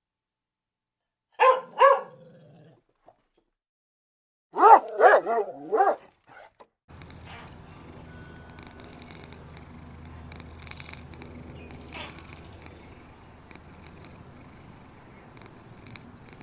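A cat meowing: two short meows, then a quick run of several more, followed by a long, steady, low purr.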